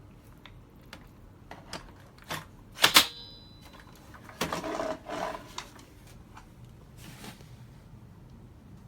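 Scattered clicks and knocks of objects being handled, with two loud sharp clicks about three seconds in and a short scraping rustle a second or so later.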